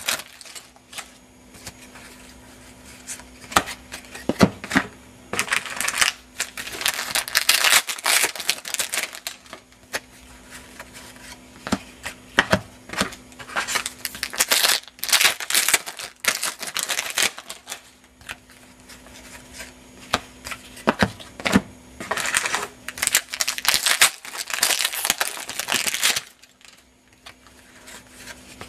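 Plastic wrappers of 2008 SP Authentic football card packs crinkling in the hands in several spells of a few seconds each, with short clicks and flicks from the cards being handled between the spells.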